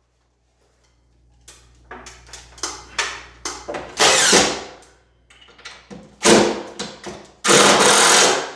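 Drywall being worked with hand and power tools: a string of short scraping strokes and louder bursts that starts after a brief quiet, with the longest and loudest bursts near the end.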